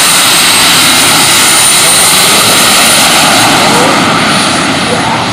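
Four JetCat model jet turbines of a large RC Airbus A340 model on the takeoff roll: a loud, steady rush with a high whine that dips slightly in pitch. The sound eases a little near the end as the model moves away.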